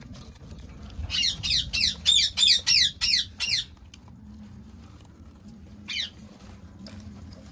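An animal squawking: a quick run of about nine loud, high calls that each fall in pitch, then a single call near the end.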